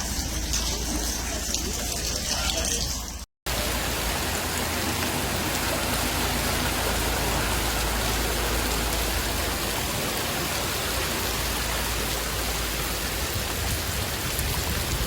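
Steady rush of water, an even hiss spread from low to high pitches, broken by a split-second gap a little over three seconds in and then running on evenly.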